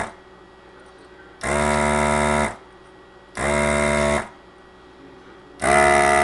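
The vacuum pump of a handheld desoldering gun buzzes in bursts of about a second, three times, as it sucks melted solder off the leads of a removed surface-mount chip. The last burst is a little louder.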